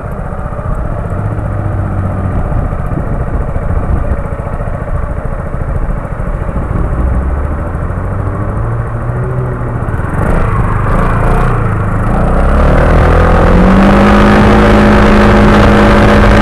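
Motorcycle engine idling while stopped. About twelve and a half seconds in it throttles up and settles into a steady, louder run as the bike pulls away, with wind noise on the microphone rising.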